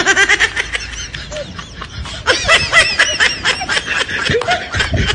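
High-pitched laughter: a quick, continuous run of short giggles.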